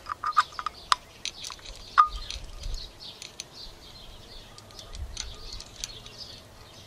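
Steel roller timing chain of an Ecotec engine clinking and ticking against its sprockets and the timing cover as it is draped on by hand, with a sharper ringing metal clink about two seconds in. Birds chirp in the background.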